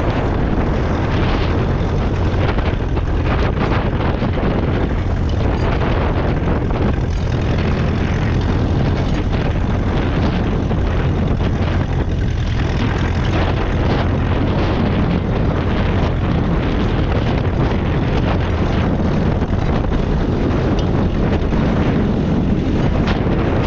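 Ferguson TED20 tractor's 2.1-litre four-cylinder petrol/TVO engine running steadily while ploughing, with wind buffeting the microphone.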